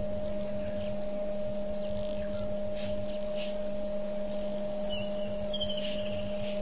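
A steady electrical-sounding hum of two constant tones, one low and one higher, with a short run of faint high bird chirps about five seconds in.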